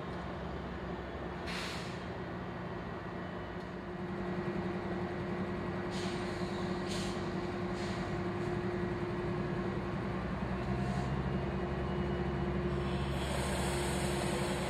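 Diesel locomotive idling steadily, with several short hisses of released air from its brakes.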